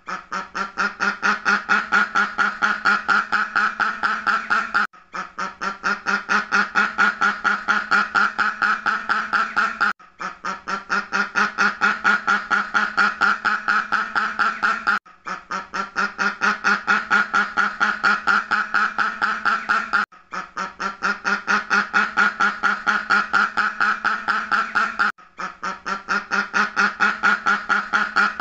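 Duck quacking in a rapid, continuous run of quacks, several a second. The recording loops: every five seconds there is a brief gap and the run starts again, swelling back up.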